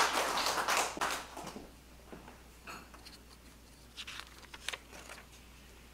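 Audience applause dying away about a second in, then a quiet small room with a few soft taps and rustles.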